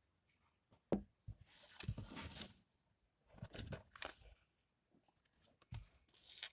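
Quiet handling sounds in a small room: a sharp click about a second in, then about a second of rustling, a few shorter rustles and a knock near the end.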